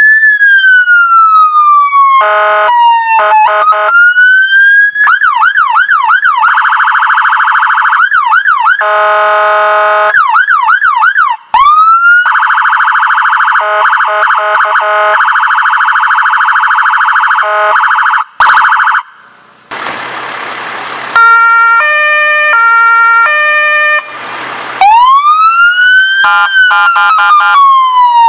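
A fire brigade car's electronic siren cycled through its tones. It starts with a slow rising and falling wail, moves to a fast yelp and a buzzing electronic horn in steady runs and short blasts, then gives a brief hiss and a stepping multi-tone pattern. The wail returns near the end.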